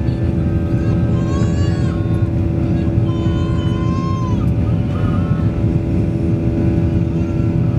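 Boeing 737-800's CFM56-7B turbofan engines at climb thrust just after takeoff, heard inside the cabin: a loud, steady rumble with a steady hum running through it.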